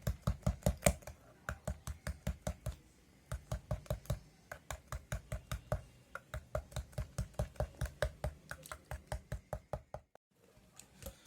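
A spoon stirring a turnip-juice, sugar and ginger syrup mixture, knocking against the side of its container about four times a second, to blend the mixture. It pauses briefly near the end.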